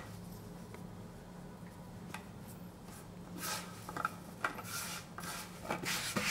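Hands tossing and separating floured, freshly cut noodle dough on a wooden board: soft brushing and rubbing, in a few short bursts mostly in the second half.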